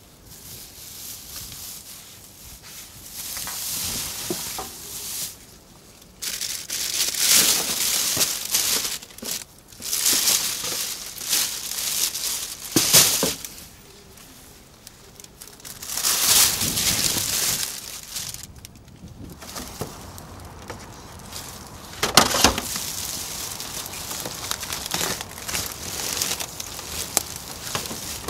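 Plastic bags and wrappers crinkling and rustling as rubbish is handled, in irregular bursts a few seconds long with sharper crackles now and then.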